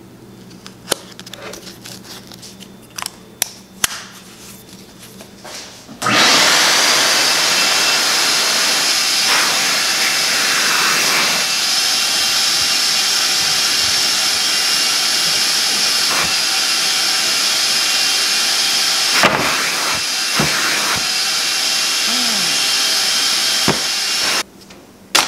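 Vacuum running through a hose hooked to a hand sanding block: a loud, steady rushing hiss that starts about six seconds in and cuts off suddenly near the end, its pitch wavering a few times as the block is worked over the board. The suction is strong enough to pull the board up off the bench. Before the vacuum comes on, a few light clicks of handling.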